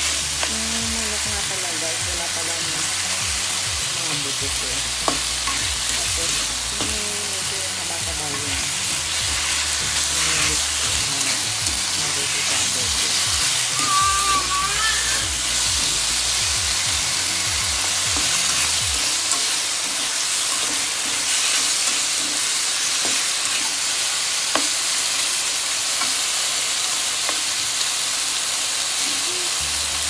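Pork and chicken pieces sizzling as they fry in a pan: a steady hiss, with a few sharp clicks as the pieces are turned.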